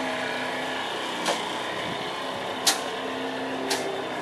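Gator Power Gate's electric wheel-drive unit running steadily with a humming whine as it rolls a wooden swing gate closed, with three sharp clicks along the way, the loudest about halfway through.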